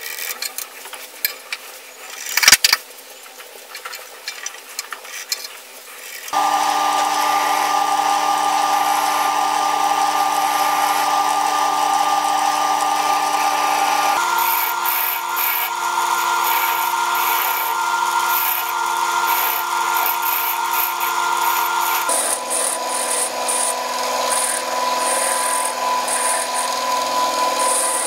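Wood lathe spinning a wooden spindle blank. The first few seconds hold light clicks and a single knock; then the lathe runs with a steady motor whine while a turning tool scrapes and cuts into the spinning wood, its tone changing twice.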